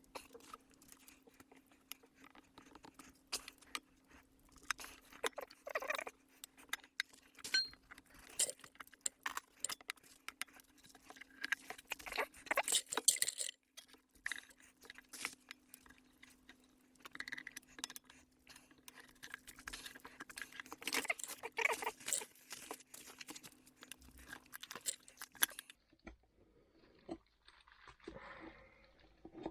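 Hand tools clicking and scraping against the wheel rim and tyre rubber as the bead of a Ninebot Max G30 tubeless scooter tyre is pried off the rim, in many small irregular clicks and scrapes with a few busier stretches.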